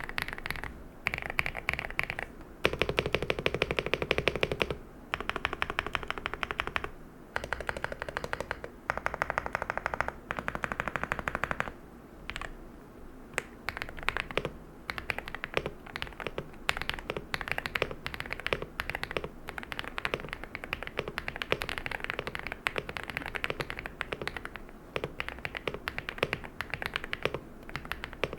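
Leobog Hi86 mechanical keyboard with its stock Leobog Rambo switches being typed on. First come several bursts of very rapid keystrokes, each lasting one to two seconds, then separate keystrokes at an ordinary typing pace for the rest.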